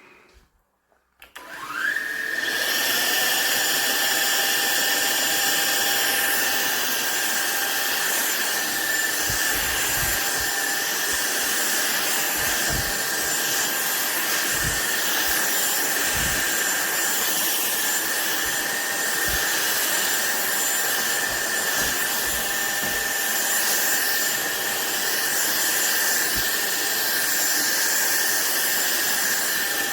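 SunSare cordless stick vacuum cleaner switched on about a second in, its motor spinning up with a rising whine and then running steadily with a high whine and rushing air. Occasional short low knocks sound under it.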